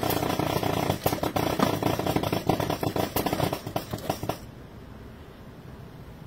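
Motor-driven mechanism of an animated plant prop running, a steady motor hum with rapid clattering clicks from its metal scissor arms and plant heads, then shutting off abruptly about four and a half seconds in, leaving a faint hiss.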